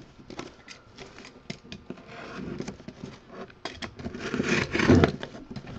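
A knife blade slicing and scraping along the packing-tape seam of a cardboard case, with light clicks and taps from hands handling the box, and a louder, longer scraping stretch about four seconds in.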